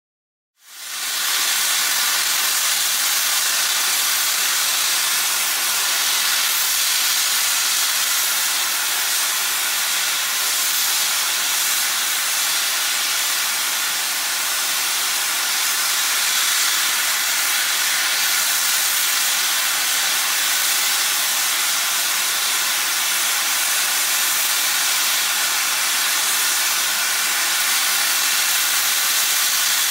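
NSW C38 class steam locomotive 3801 venting steam at track level: a loud, steady hiss that starts about a second in and holds evenly throughout.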